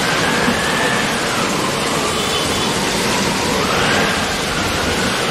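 Loud, steady rushing noise like static hiss, with a faint whistle-like tone that slides slowly down and back up. It starts and cuts off abruptly, like an edited-in sound effect.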